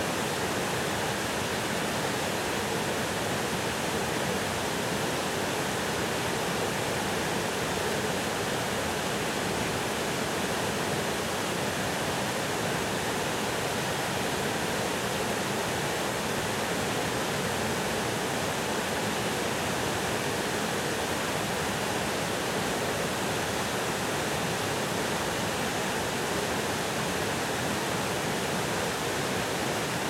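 Waterfall pouring down a rock face: a steady, even rush of falling water.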